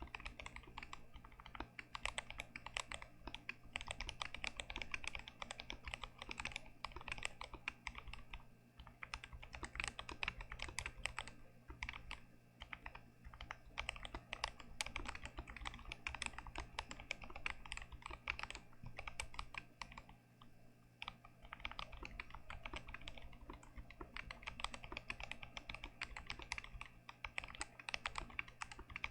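Continuous fast typing on a GMMK Pro mechanical keyboard with Gazzew Boba U4T tactile switches: dense, rapid key clacks with a couple of brief pauses.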